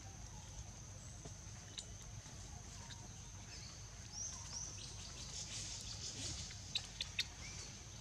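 Birds chirping over a steady high-pitched hum, with three short sharp chirps close together near the end.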